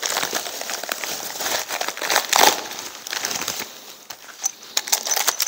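Plastic packaging crinkling and rustling in the hands as a bracket is unwrapped, with irregular crackles.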